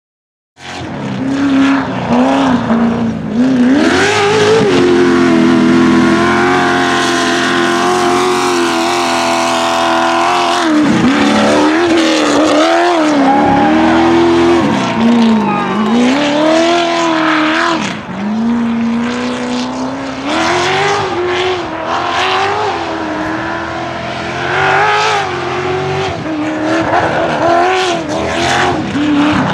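Off-road race buggy's engine revving hard and easing off again and again as it is driven flat out around a dirt track, the pitch climbing and dropping repeatedly. It starts about half a second in.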